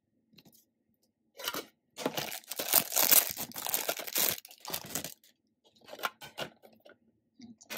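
Clear plastic wrapping on a metal tin crinkling and tearing as it is handled and unwrapped. The loudest stretch runs about two seconds in the middle, with shorter rustles before and after.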